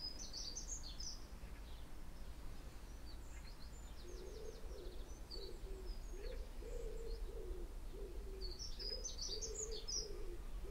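Birds singing: bursts of high, quick twittering near the start and again near the end, with a lower call repeated over and over from about four seconds in.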